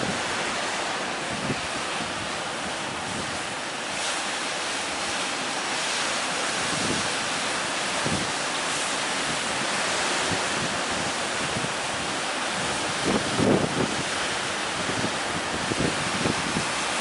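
Large ocean surf breaking and washing, a steady roar of water, with wind buffeting the microphone in gusts, strongest about two-thirds of the way through.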